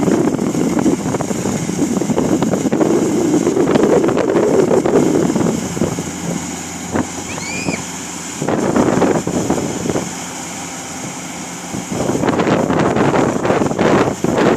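A homemade cutting machine running with a rough, uneven rumble that eases off for two stretches in the second half.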